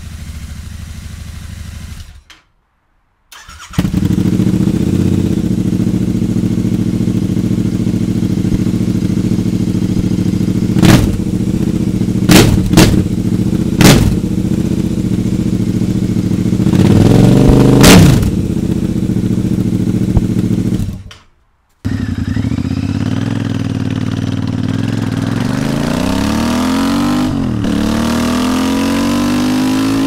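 Royal Enfield Interceptor 650 parallel-twin engine idling briefly through its stock exhaust, then, after a short break, idling loudly through a Sold Out Motorcycles Short Shot straight-through exhaust with several sharp throttle blips and one longer rev. After another break the bike is ridden, the engine pulling up with rising pitch, dropping at a gear change near the end and pulling up again.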